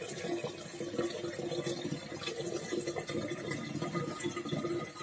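Freshly poured boiling water in a glass demijohn, irregularly bubbling and crackling, with a low tone that comes and goes.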